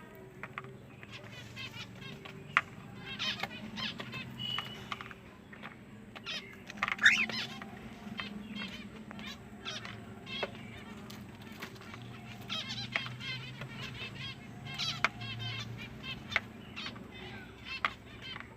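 Pet cockatiel chirping and warbling in short runs of quick notes, with one loud rising call about seven seconds in, over a faint steady low hum.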